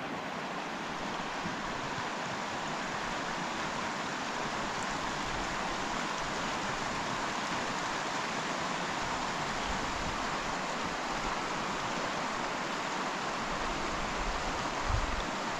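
Specimen Creek, a fast mountain creek running over rocks, rushing steadily, with a brief low bump near the end.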